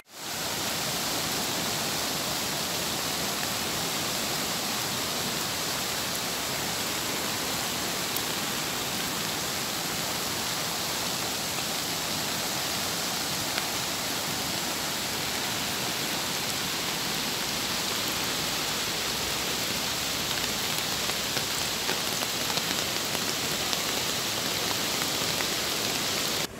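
Steady, even hiss of rain mixed with the rush of a flooded river running over its banks.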